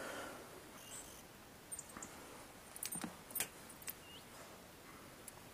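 Light clicks, rattles and knocks of gear being handled at a car boot beside a wire dog crate, with one duller thud about three seconds in and a brief high squeak a little after.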